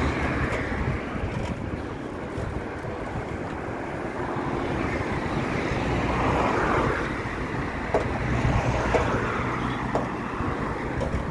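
Car driving along a road: steady engine hum with tyre and road noise, swelling about six seconds in, and a few light clicks in the last few seconds.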